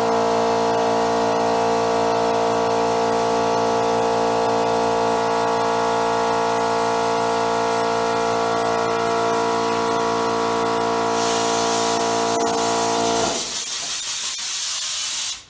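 Homemade high-velocity propane forge burner running full blast: a loud, steady rushing roar with a strong droning hum of several steady tones. About thirteen seconds in the hum stops, leaving only the hiss, which cuts off sharply near the end.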